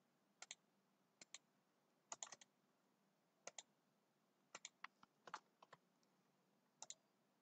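Computer mouse and keyboard clicks: about ten short sharp clicks, several in quick pairs, scattered through near silence.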